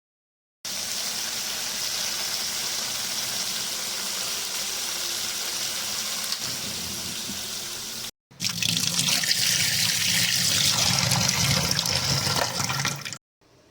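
Tap water running into a sink in two stretches, with a brief break about eight seconds in; the second stretch is louder and more splashy.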